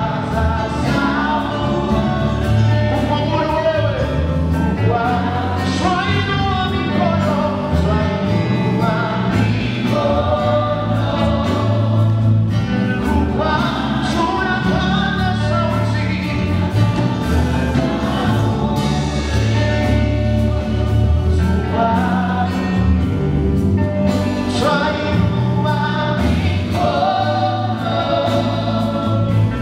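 Gospel worship music: a choir singing in Swahili over a band with bass and drums.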